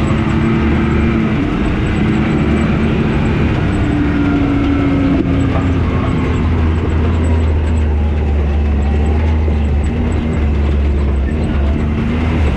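Can-Am Maverick X3 side-by-side's engine running steadily under way, its note drifting up and down with the throttle, over continuous wind and tyre noise.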